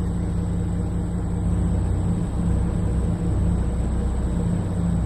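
Ford F-150 Raptor's 3.5-litre twin-turbo V6 idling steadily.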